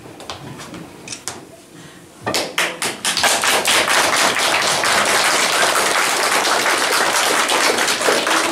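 Applause from children and adults clapping by hand: a few scattered claps, then about two seconds in many hands clapping at once, dense and steady.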